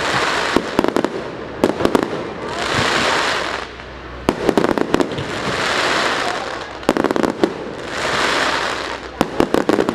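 Fireworks going off in repeated volleys: quick clusters of sharp pops, each followed by about a second of hissing, coming back about every two and a half seconds.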